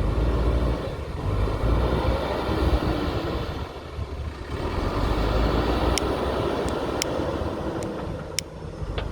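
JCB backhoe loader's diesel engine running under working load, swelling and easing, with a few sharp clicks in the second half.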